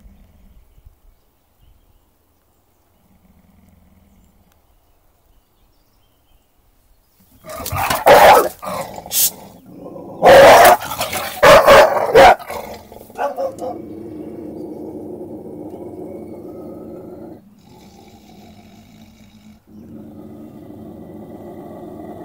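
American Staffordshire terrier lunging at a metal tray held as a shield, barking and snarling in loud bursts for about five seconds, then settling into a long, steady growl that breaks off briefly twice: territorial aggression toward a stranger.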